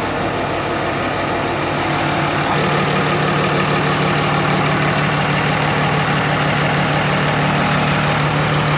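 A steady, engine-like mechanical drone with a constant low hum, growing slightly louder about two and a half seconds in.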